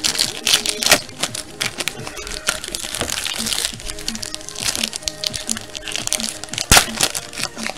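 Foil wrapper of a trading-card pack crinkling and tearing as it is opened by hand, with a sharp crack near the end, over background music.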